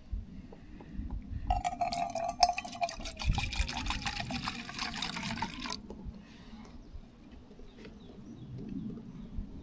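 Liquid being poured into a container, starting about a second and a half in and cutting off abruptly about four seconds later.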